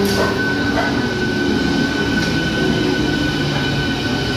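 Eastern Railway electric multiple unit local train running past along the platform: continuous wheel-and-rail noise with a steady high whine and a few light clicks in the first second.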